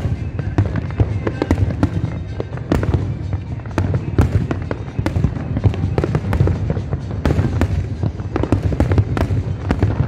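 Aerial fireworks display with shells bursting in quick succession: a dense, irregular run of bangs and crackles.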